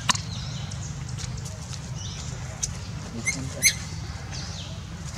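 Baby macaque giving short, high-pitched squeaks four times, the loudest right at the start and about three and a half seconds in.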